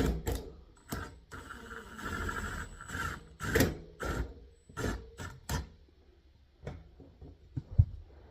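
Hand work on HVAC parts: a series of sharp knocks and clicks with a scraping stretch about two seconds in, and one loud knock near the end.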